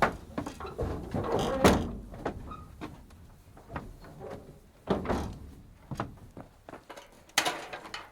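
Calves being loaded into a livestock trailer: irregular thuds, knocks and bangs of hooves and gates. The loudest bangs come just under two seconds in, about five seconds in and near the end.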